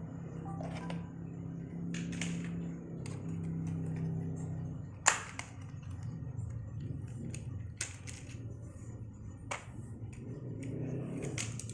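Sharp clicks and taps from handling laptop parts by hand, a few spread through, the loudest about five seconds in, over a steady low hum.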